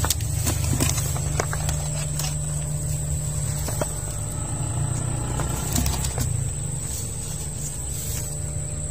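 A steady, high-pitched insect drone over low rumbling noise, with a few faint clicks scattered through.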